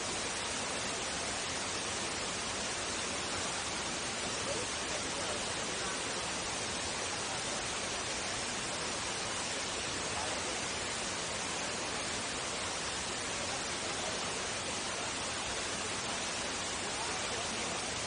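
Steady, even rushing of a waterfall pouring into its plunge pool.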